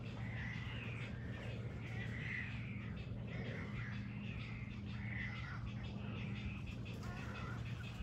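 A mixed colony of birds in mangroves calling over one another, short wavering calls repeating every half second or so, over a steady low hum.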